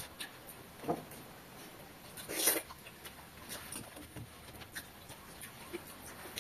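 People eating rice and small-fish curry by hand: chewing and mouth smacks with scattered small clicks, and one louder noisy sound about two and a half seconds in.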